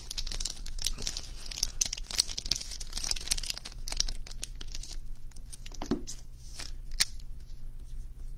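Crinkling and rustling of thin plastic with many small clicks as baseball cards in clear plastic holders are handled; a sharper click about seven seconds in.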